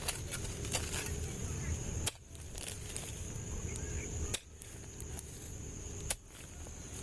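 Digging in soil for earthworm bait: a few sharp chopping strikes into the ground over a low rumble, broken by several abrupt short drop-outs.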